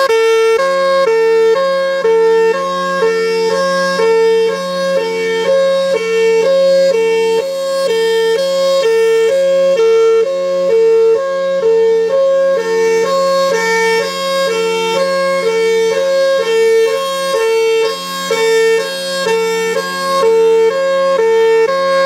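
Federal Signal Thunderbolt 1003 outdoor warning siren sounding its hi-lo signal, switching back and forth between a high and a low pitch, with a steady low hum underneath.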